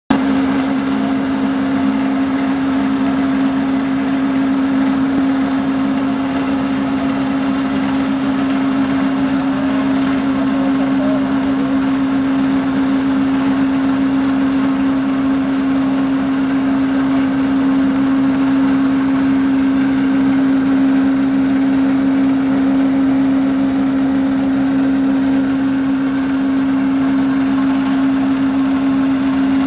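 A steady machine drone with a strong, constant low hum that holds unchanged throughout.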